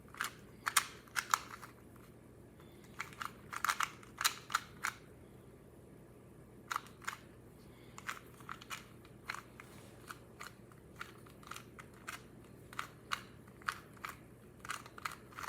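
QiYi 2x2 speed cube being turned fast during a timed solve: irregular runs of sharp plastic clicks and clacks, broken by short pauses.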